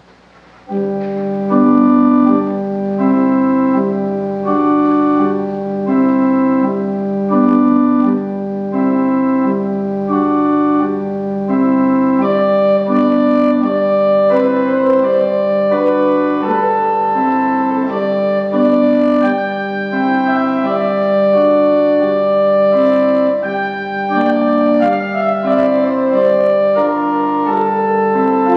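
Pipe organ playing a prelude: a steady held low note under a repeating pattern of sustained chords, starting about a second in and growing brighter and fuller from about twelve seconds in.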